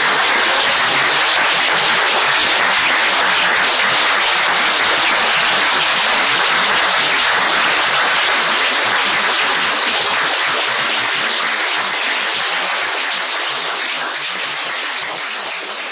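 Audience applauding at the close of a speech, a steady sustained clapping that fades away over the last few seconds.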